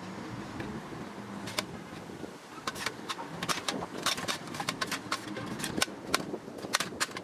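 Firewood crackling in a small camping wood stove, with sharp, irregular pops that come thick and fast from about three seconds in.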